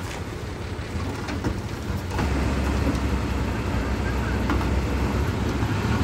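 Heavy diesel engine of earthmoving machinery running with a low rumble that grows louder about two seconds in.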